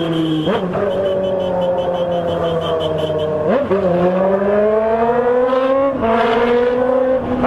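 Vehicle engine running under load, its pitch dropping and then climbing again at a few points, as with gear changes while accelerating.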